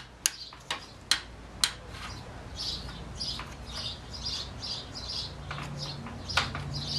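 One-handed bar clamp's trigger clicking four times as it is ratcheted tight on a pine board, then a bird chirping repeatedly, about two chirps a second.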